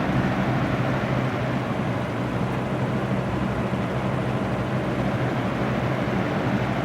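1998/99 Lasko box fan running steadily on medium speed: a motor hum under a steady rush of air. The fan is shaking slightly.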